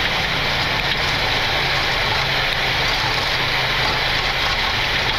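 Steady roar inside a Boeing 737 cockpit during the landing roll-out, with the thrust reversers deployed: engine noise and airflow over a low rumble from the wheels on the runway.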